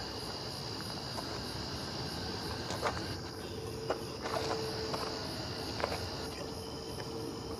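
Crickets chirping steadily in a continuous high trill, with a faint steady hum coming in about halfway and a few short sharp clicks.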